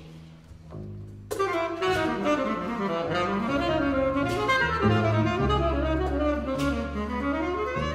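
Tenor saxophone enters about a second in with a winding melody, over the low held notes of a bowed cello. A few sharp percussion strikes land along the way.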